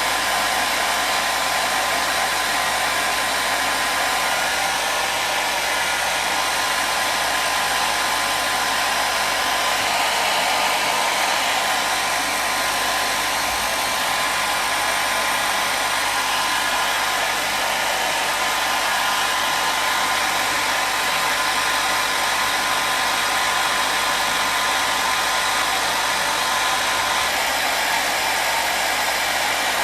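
Hair dryer running steadily: an even, unbroken rush of air, with a faint steady whine from the motor.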